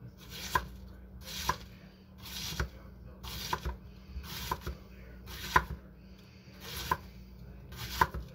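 Homi Kajiya nakiri knife slicing red cabbage on a wooden butcher-block board. There are about eight unhurried strokes, roughly one a second, each a crisp crunching shred through the cabbage leaves ending in a sharp knock of the blade on the board.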